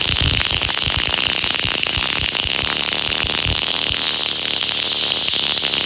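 Loud, steady static hiss with irregular crackling pops, cutting off suddenly at the end.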